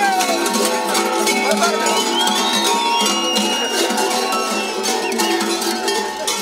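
Large bells on mummers' goat-fur costumes clanging densely and continuously, a jangle of many strikes over lasting ringing tones, with a shout at the start.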